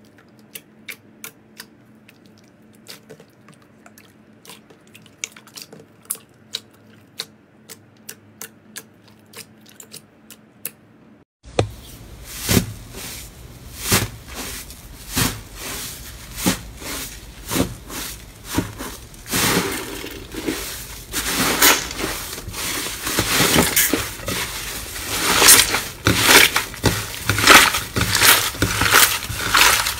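Slime being played with by hand: for about the first eleven seconds, faint, sharp, separate clicks and pops. Then, after an abrupt cut, louder continuous crunching and crackling of crunchy slime being squeezed and pressed, growing louder in the second half.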